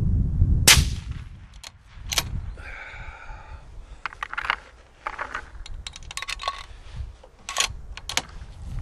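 A single rifle shot from a 6mm ARC rifle less than a second in, followed by a short ringing sound and then a string of small metallic clicks and clacks as the rifle is handled and reloaded for the next shot.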